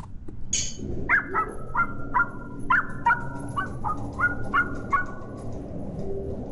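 A dog barking: about a dozen short, high barks, roughly three a second, starting about a second in.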